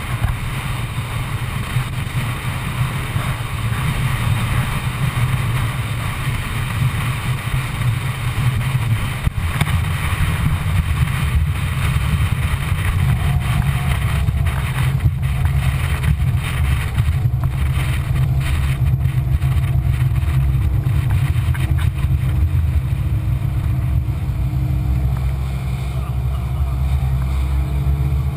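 Rigid inflatable boat under way: its outboard engine running steadily with the rush of water along the hull, heard as a muffled low rumble through the camera's waterproof housing.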